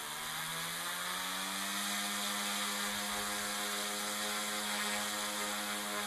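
Eachine E150 micro RC helicopter's brushless motors and rotors spooling up on the ground: a whine that rises in pitch over the first two seconds, then holds steady at flying head speed.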